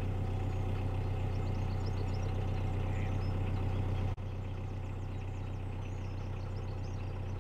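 Narrowboat's diesel engine running steadily at cruising pace, a low even hum, with birds chirping faintly over it. The engine sound drops slightly in level about four seconds in.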